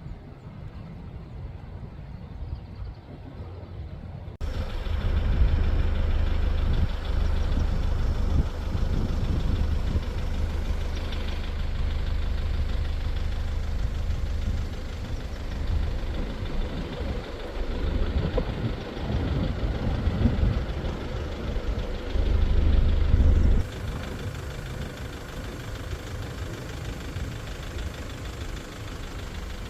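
A vehicle engine running at low speed. Its deep rumble comes in suddenly about four seconds in and drops back suddenly near the end.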